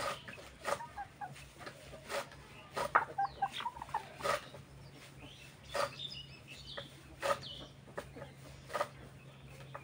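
Broiler chickens clucking, short separate calls every second or so, over a steady low hum.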